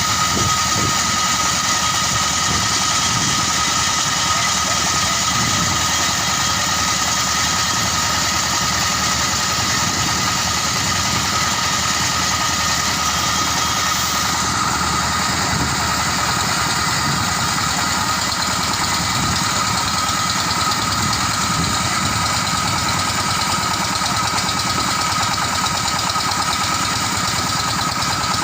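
Motorised rice thresher running steadily, its engine and threshing drum making a constant mechanical drone with a steady high whine.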